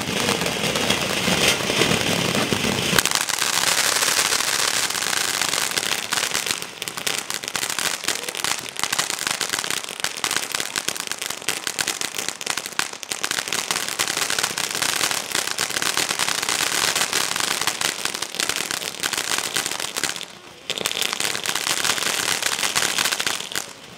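Ground fountain firework (Dominator Poker Face, DM705) spraying sparks: a steady hiss packed with dense crackling. It drops away briefly about 20 seconds in, then picks up again.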